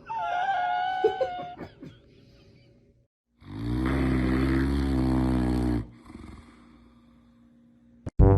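Animal vocalising: a short wavering high-pitched cry at the start, then a long, low, rasping snore-like sound lasting about two and a half seconds.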